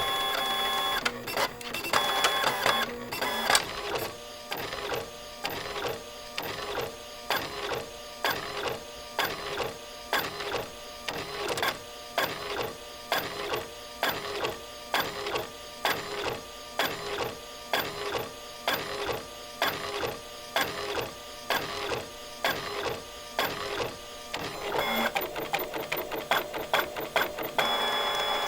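A printer printing. It starts with a steady motor whir and clicks, then settles into a long, even rhythm of strokes at about two a second. Near the end comes a quick run of rapid ticks, and then the steady whir again.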